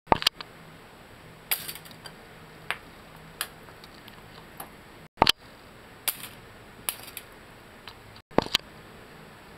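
Irregular sharp clicks and knocks from a handheld camera being moved about, the loudest near the start and about five seconds in, with the sound cutting out briefly twice.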